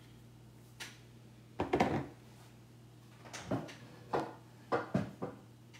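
Chalk paste jars being handled and stirred: about five short knocks and scrapes spread over several seconds.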